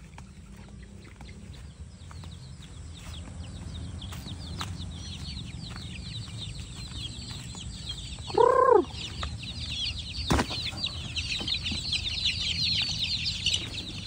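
A flock of kampung (KUB) chicks peeping many times over, growing louder and denser through the second half. A single loud chicken call breaks in about eight seconds in, and there is a sharp knock a couple of seconds later.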